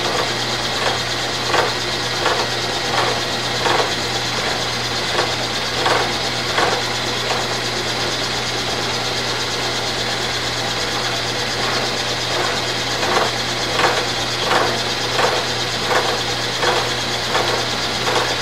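Vertical milling machine running, its cutter milling a shaft of tough chrome hydraulic-cylinder rod: a steady machine hum with a string of short sharp clicks, about one every 0.7 s, that stop for several seconds in the middle and then resume.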